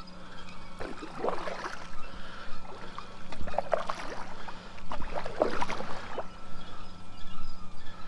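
Kayak paddle strokes: three splashes of the blade dipping and pulling through the water, about two seconds apart.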